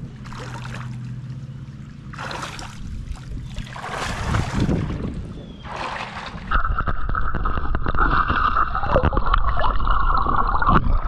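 Water splashing and gurgling around people in a creek. A few separate surges come first; then, about six and a half seconds in, a louder steady rushing, gurgling noise runs until just before the end.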